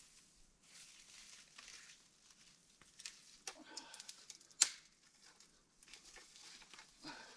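Faint rustling and crackling of pine boughs being spread over a log tree platform, with scattered twig snaps and knocks and one sharp crack a little past halfway.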